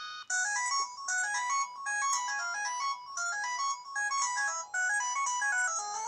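Built-in ringtone of a Samsung SGH-X160 phone previewing through its small speaker: just after the start a held chord cuts off and a new quick melody of short notes begins, played in phrases about a second long with brief gaps between them.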